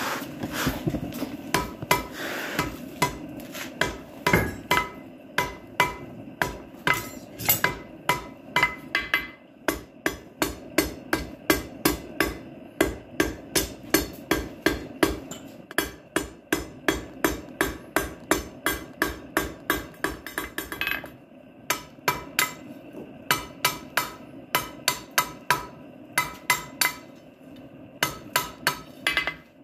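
Blacksmith's hand hammer forging hot 3/8-inch round steel on an anvil, working down the stock behind freshly set-down shoulders. Steady blows come about two to three a second with a few short breaks, and each blow has a bright metallic ring.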